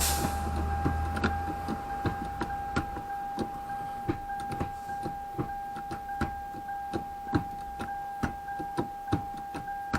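A string of short clicks and clunks, roughly one every half second to second, from a Toyota Celica's gear shifter being worked through the gears, under a steady high tone. A low rumble fades out over the first two seconds.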